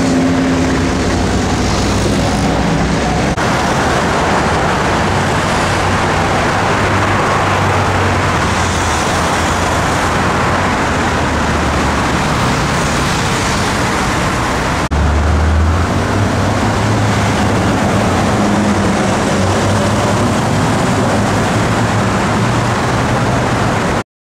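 Sports-car engines and heavy road traffic: a steady, loud mix of engine drone and tyre noise that shifts abruptly twice, then cuts off suddenly near the end.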